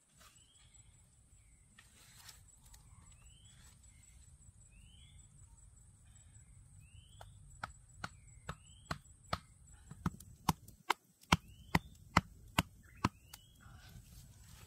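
A wooden stake being pounded into the ground with a chunk of wood: about a dozen sharp knocks, roughly two a second, through the second half. Throughout, a bird repeats a short rising chirp about once a second over a steady high insect whine.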